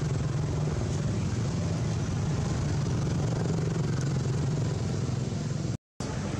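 A steady low rumble with a hiss over it, breaking off for a moment near the end.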